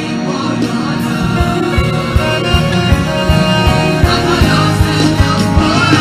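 Gospel worship song performed live: a choir sings with a band, and a steady drum beat comes in about a second in.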